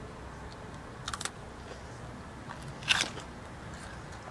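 Someone biting and chewing a sweet sesame seed snack bar: a few brief crunches, two close together about a second in and a louder one about three seconds in.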